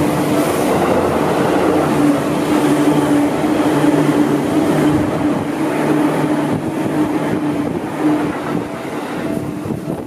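Seibu Railway commuter train running past close by, a steady rush of wheel and rail noise with a low hum, easing off a little near the end as it moves away.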